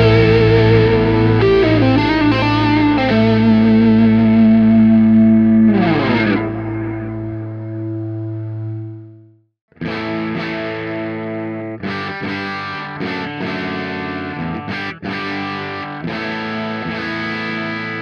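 Overdriven electric guitar played through a TC Electronic JIMS 45, a JTM45-style amp emulation pedal, recorded direct. Held lead notes with vibrato end in a slide down and fade out about nine and a half seconds in. After a brief silence, chords and riffs come in with a few short stops.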